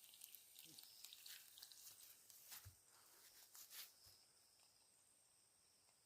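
Near silence: faint steady high-pitched insect chirring, with faint scattered clicks and crackles over the first four seconds.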